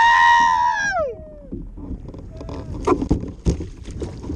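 A long, high-pitched yell of celebration that falls away about a second in, followed by water splashing and knocks against the kayak.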